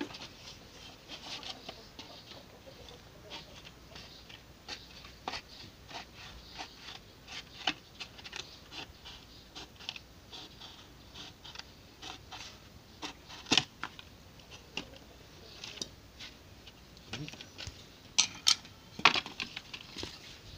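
Scissors cutting through the plastic wall of a canister: a run of irregular small snips and crackles, with a sharper click about two-thirds of the way in and a few louder clacks near the end.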